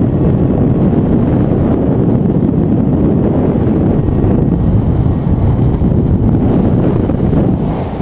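Wind rushing over the microphone in paraglider flight: a loud, steady rumble of airflow with no engine tone, easing briefly near the end.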